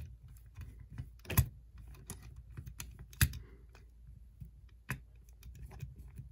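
Small plastic and metal parts of a Tyco Power Torque locomotive drive clicking and tapping as they are handled and fitted back together, with two sharper clicks about a second and a half and three seconds in.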